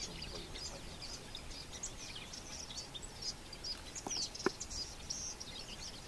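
Small birds chirping in many quick, high calls against an outdoor background, with two sharp clicks a little past four seconds in.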